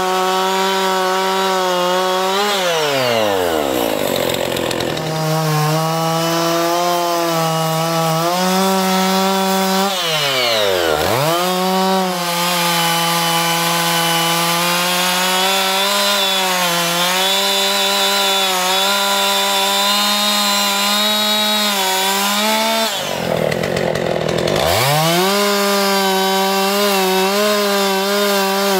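Chainsaw running hard while cutting into a tree trunk for a carving. Its engine pitch drops away and climbs back up three times: about three seconds in, about eleven seconds in, and about twenty-four seconds in.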